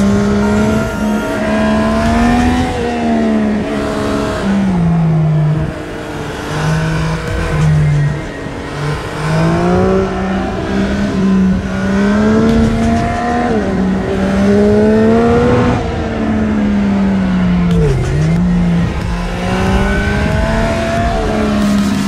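Yamaha XSR900's inline-three engine pulling the bike through a run of curves, its note rising and falling as the rider rolls on and off the throttle, dropping away a few times and picking up again, with wind noise underneath.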